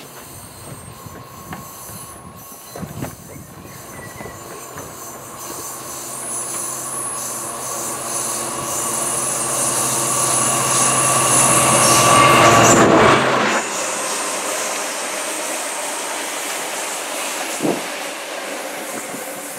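Freightliner Class 66 diesel locomotive's EMD two-stroke V12 engine working hard (thrash) as it comes up, growing steadily louder and peaking as it passes beneath, then cutting away suddenly about 13 seconds in. The engineering train's wagons then roll past with rail noise and a thin high ringing.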